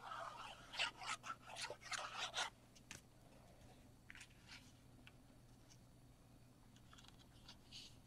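Wet-glue bottle's applicator tip scratching in quick strokes along cardstock for the first couple of seconds. Then come a few faint rustles and ticks as the card panel is handled.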